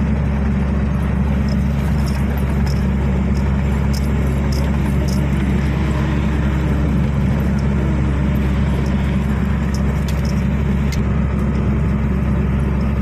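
Truck's diesel engine running steadily at cruising speed, heard from inside the cab as a constant low drone with road noise, with scattered faint clicks and rattles.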